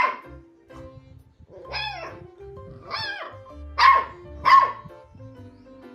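A dog barking five times, each bark bending up and then down in pitch, the last two the loudest, over steady background music.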